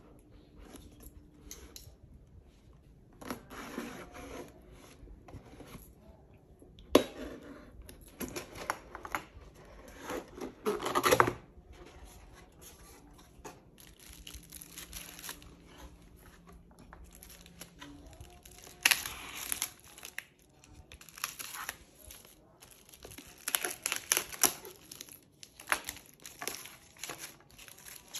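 A cardboard shipping box being opened by hand: irregular scraping and tearing of packing tape and cardboard flaps, with a sharp snap about a quarter of the way in and a long rip soon after, then plastic wrapping crinkling as the packaged case inside is handled.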